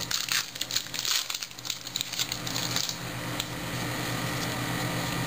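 Foil wrapper of a baseball card pack crinkling and crackling in the hands as it is opened and the cards are handled. The crackling is busiest for about three seconds, then gives way to a steady hiss.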